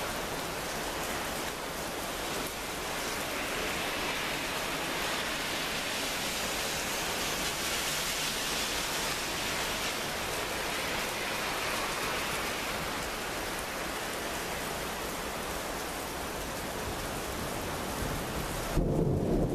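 Heavy rain falling in a thunderstorm downpour: a steady, even hiss with no thunder claps standing out. Near the end it gives way to wind buffeting the microphone.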